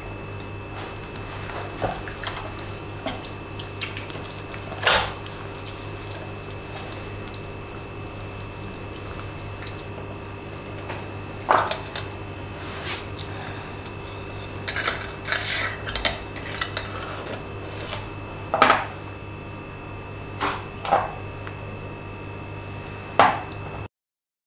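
Stainless wire grill basket clinking and rattling against a plastic cutting board as marinated chicken is laid in and the hinged wire lid is handled, a scattering of sharp metallic clicks with a small cluster in the middle. A steady low hum runs underneath.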